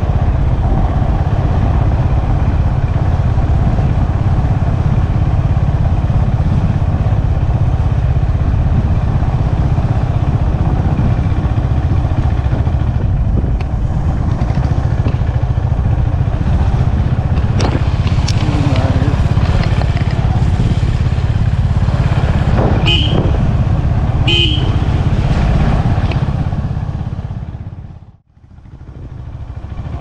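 Motorcycle on the move, its engine running steadily under a heavy low rumble of wind. Two short horn toots come a little over twenty seconds in, and the sound dips out briefly near the end.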